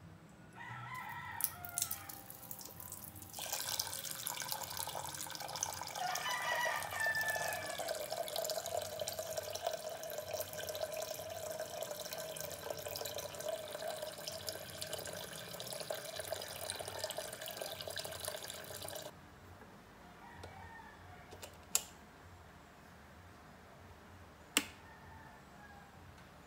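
Filtered tap water running into a stainless steel pot for about fifteen seconds, with a ringing tone that drops in pitch and then holds steady as the pot fills. The flow then stops, and two sharp clicks follow a few seconds apart.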